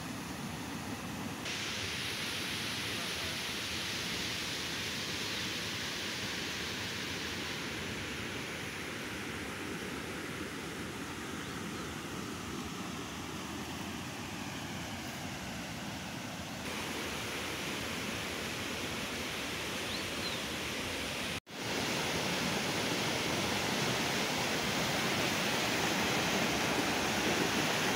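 Steady rush of a swollen, muddy river running high after heavy rain, with a momentary dropout about three-quarters of the way through.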